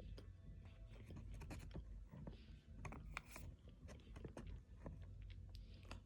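Cornstarch being chewed close to the microphone: faint, irregular crunches and wet clicks from the mouth, with a few short crackles. The cornstarch is thick and squeaks only a little.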